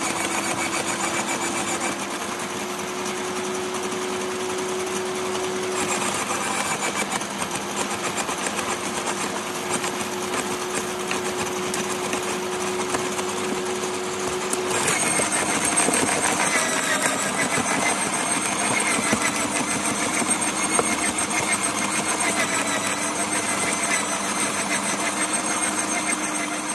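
Parkside PWH 2800 B2 electric roller shredder running with a steady motor whine. About fifteen seconds in the note drops slightly and the sound grows a little louder, with a dense crackling over it.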